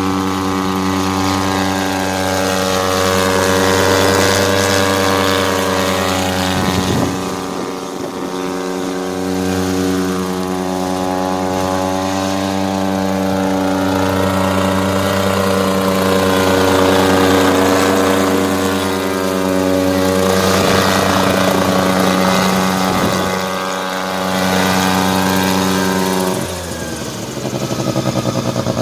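REMO-H unmanned crop-spraying helicopter's engine and rotor running steadily, a loud buzzing drone that swells and bends in pitch as it passes. About three-quarters of the way through the pitch sweeps, and near the end the sound suddenly drops lower and quieter as the engine throttles down.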